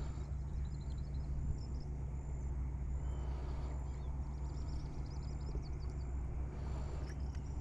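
Outdoor ambience: a steady low hum runs throughout, with small birds chirping in short bursts over it.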